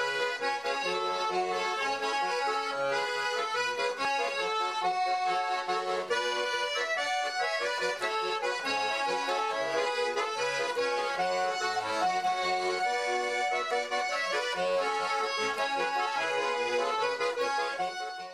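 Accordion music: a melody over repeating bass notes.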